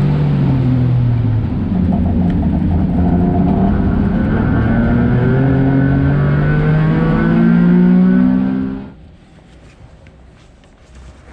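Daihatsu Esse's small engine pulling under load, its pitch dipping at first and then climbing steadily as the car accelerates. It cuts off abruptly about nine seconds in, leaving a quiet stretch with a few faint ticks.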